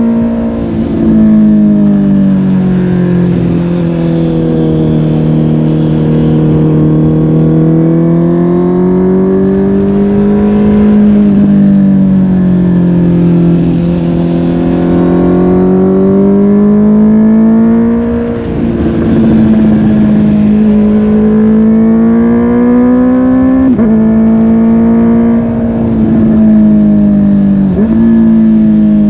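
Honda CB650R's inline-four engine through a MIVV GP PRO Carbon aftermarket exhaust, pulling and easing off on the throttle so its pitch rises and falls over and over. It is broken by a few quick dips and jumps in pitch, typical of gear changes.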